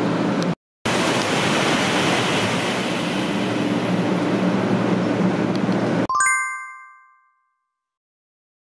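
N700A Shinkansen on a high-speed pass, a loud steady rushing noise that cuts off abruptly about six seconds in. A short bright chime follows and dies away.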